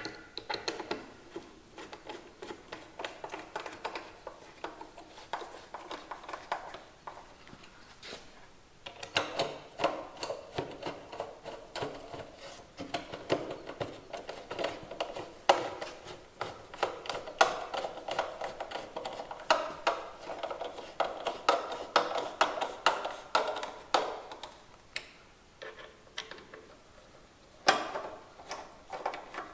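Runs of rapid mechanical clicking with light knocks, from hand tools at work as the new fence is fastened into the saw's bolt holes. The runs stop and start, with short quieter gaps, and one sharp knock near the end is the loudest.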